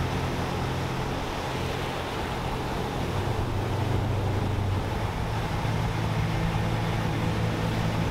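Surf breaking and washing up the beach, a steady rush of white water with a constant low rumble underneath.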